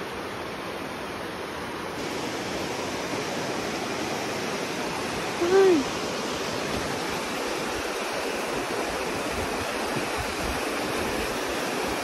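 Steady rush of a shallow, rocky river flowing over stones, a little louder after the first couple of seconds. About halfway through, one short pitched sound rises and then falls, the loudest moment.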